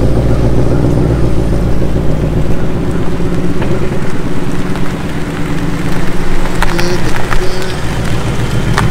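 2019 Ford Mustang Bullitt's 5.0-litre V8 running at low revs, a steady deep rumble that eases slightly partway through and then builds again.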